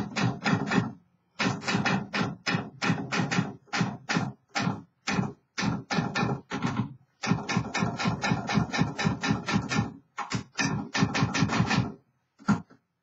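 Olivetti Underwood Studio 44 manual typewriter being typed on, a restored machine in working order. Quick runs of key strikes come several a second, broken by short pauses, the longest about a second in and near the end.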